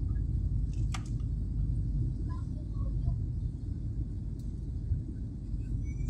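Steady low rumble of a jet airliner's cabin in flight: engine and airflow noise.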